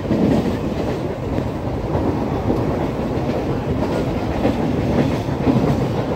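Mumbai suburban local train running, heard from inside the carriage at an open grilled window: a steady rumble and rattle of the wheels on the rails.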